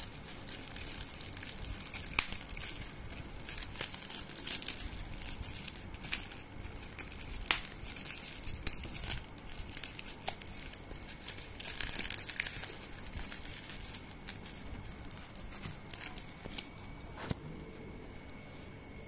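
Bubble wrap and plastic film crinkling and crackling as they are handled and pulled off a bottle, with many scattered crackles and a louder stretch of rustling about twelve seconds in.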